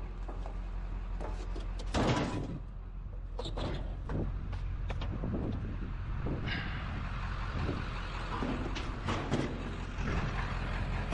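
Scattered knocks and clunks of heavy scrap metal being shifted and set down, the loudest about two seconds in, over a steady low engine hum.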